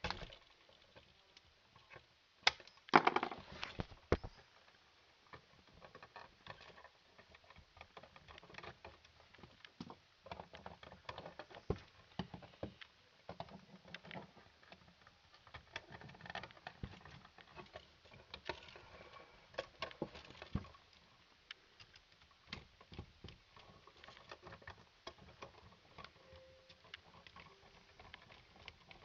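Scattered small clicks, taps and rustling of hands working electrical wires and a receptacle in an outlet box, with a louder clatter about three seconds in.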